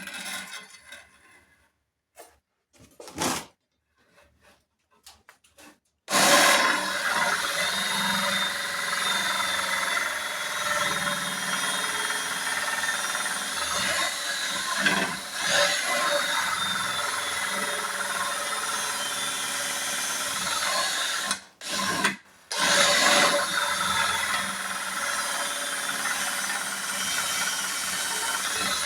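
Battery-powered drill turning a hand-forged drill bit, boring a hole. It starts about six seconds in after a few faint knocks, runs steadily, and stops briefly twice near the end.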